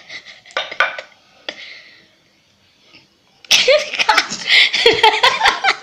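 A toddler's voice: a few short breathy noises, then from about halfway through a loud run of vocalizing whose pitch bends up and down, mixed with sharp clicks.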